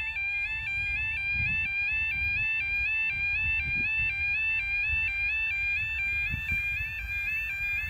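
Automatic half barrier level crossing's audible warning alarm sounding continuously, a two-tone electronic alarm stepping between a higher and a lower pitch about three times a second, warning that a train is approaching and the barriers are down.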